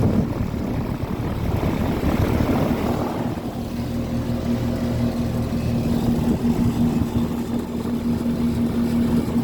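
A 1992 Carrier 38CK two-ton air conditioner condensing unit with a Copeland compressor running steadily: a constant low compressor hum over the rush of the condenser fan, the hum growing steadier and a little stronger about three and a half seconds in.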